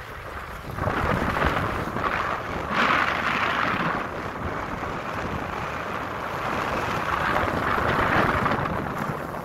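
Skis hissing and scraping over firm groomed snow, swelling and easing several times, with wind rumbling on the microphone.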